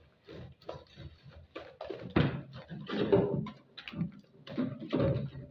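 A hand working through a wet flour-and-cornstarch batter in a plastic bowl, squelching and knocking in irregular strokes as it is mixed to a smooth paste without lumps.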